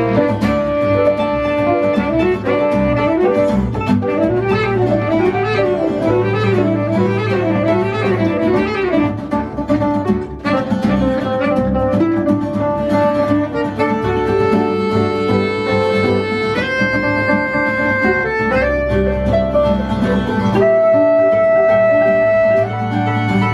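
Live acoustic guitar and saxophone playing together. A quick up-and-down figure in the first half gives way to long held notes over the guitar later on.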